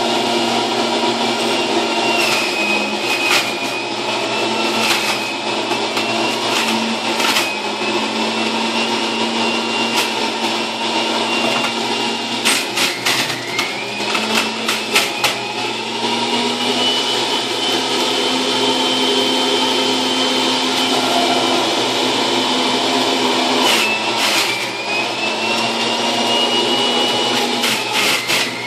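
Electric juicer motor running steadily as leafy greens are pushed down its feed chute. Its high whine dips in pitch and climbs back a few times as it is loaded, with short clattering crackles of produce being shredded.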